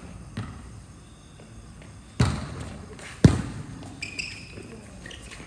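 Two loud hits of hands on a volleyball, about a second apart, each followed by a short echo.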